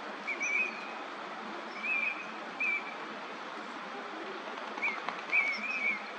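Eurasian teal giving short, high whistled calls, about six in loose groups, some in quick pairs, over a steady background hiss.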